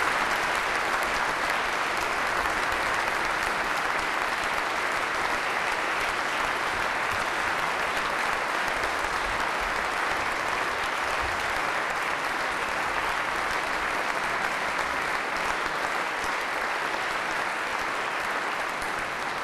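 Large audience applauding steadily and at length.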